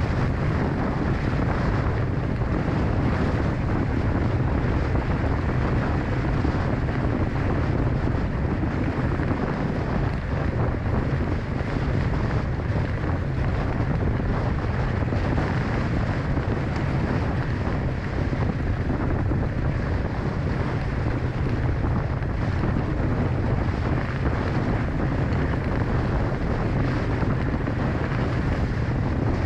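Strong wind buffeting the microphone in a steady low rumble, with water rushing past the hulls of a Hobie 16 catamaran sailing fast.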